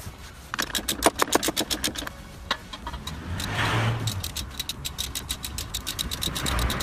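Hand socket ratchet clicking rapidly, about ten clicks a second, in two runs with a pause between, as the mounting bolts of a rear shock absorber are wound in.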